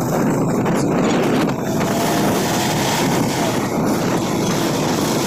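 Steady, loud wind buffeting the microphone during a ride in an open vehicle.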